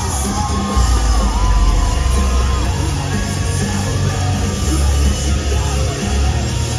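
Pop dance track played loud over a concert hall's PA, with a heavy bass beat and a singing voice, and audience yells and whoops over it.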